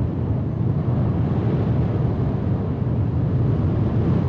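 Space Shuttle Main Engine, a liquid-hydrogen/liquid-oxygen rocket engine, firing steadily during a static test: a continuous loud rushing noise, heaviest in the low end.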